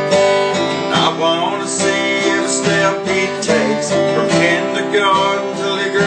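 Steel-string acoustic guitar strummed through a steady chord pattern, played as an instrumental passage between sung lines of a country-style song.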